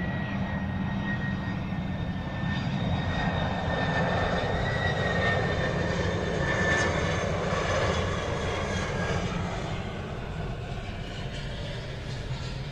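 Twin jet engines of a Boeing 767 freighter on landing approach: a steady low rumble under a high whine that slowly falls in pitch, growing louder toward the middle and easing off near the end.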